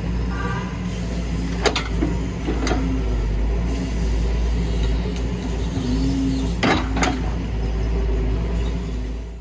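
Excavator diesel engine running steadily under a low wavering hum, with sharp knocks heard twice in pairs, about two and seven seconds in.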